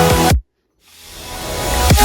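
Electronic dance music: a run of kick-drum hits cuts off abruptly about half a second in, followed by a brief silence and a rising noise swell that builds toward the drop.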